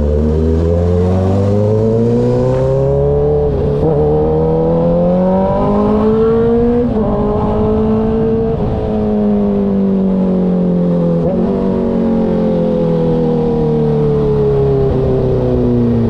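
Kawasaki ZX-6R 636's inline-four engine under way, heard onboard. Its pitch climbs, with two short breaks about 4 and 7 seconds in, then falls off steadily over the second half as the bike slows.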